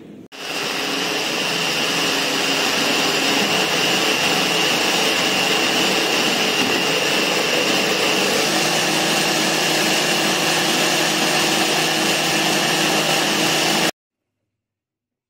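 Small electric food chopper running, its blade grinding coriander, green chillies and garlic into a wet chutney paste. The motor runs steadily with a high whine and cuts off suddenly near the end.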